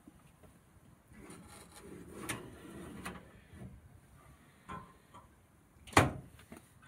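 A tray of meat is slid into a vertical cabinet smoker with a scraping metal rattle and a couple of clicks, then the smoker's metal door is shut with one sharp knock about six seconds in as its latch is closed.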